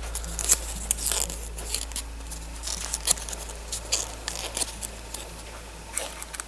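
Small plastic toy pieces and wrapping handled by hand: scattered light clicks and crinkling, over a low steady hum.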